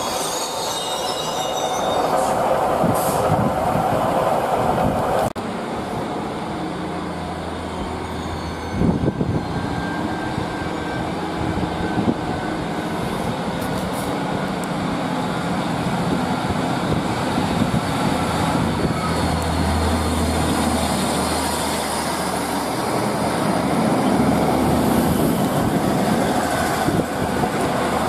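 Diesel multiple-unit passenger trains running: a unit pulling away from a platform with a high wheel squeal, then, after a sudden cut about five seconds in, another unit approaching and passing close with its underfloor diesel engine running. The low engine hum is strongest about two-thirds of the way through.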